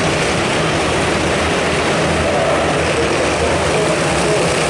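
Engines of a pack of small oval-track racing cars running together at race speed, a steady mix of engine noise with pitches that shift slightly as the cars pass.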